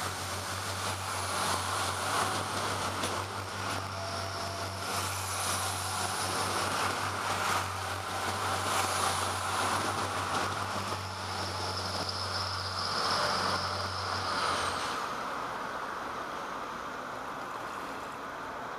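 Irish Rail diesel multiple-unit commuter train running away along the track: a steady low diesel engine hum with a high whine over the clatter and rush of wheels on rail. About fifteen seconds in, the hum and whine drop away, leaving a fainter hiss.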